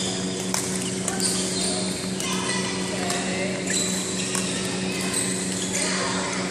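Badminton hall ambience: rackets striking shuttlecocks with sharp clicks at irregular intervals across several courts, shoe squeaks on the wooden floor and children's voices, over a steady low hum.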